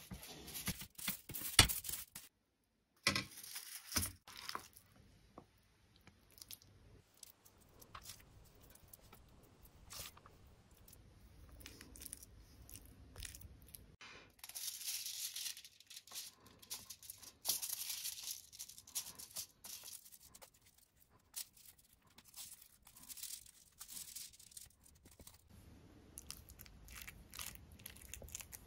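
Aluminium foil lining a baking tray crinkling and rustling in several short bursts, with scattered light clicks and taps, as a silicone brush spreads oil over it and hands work dough and filling on top.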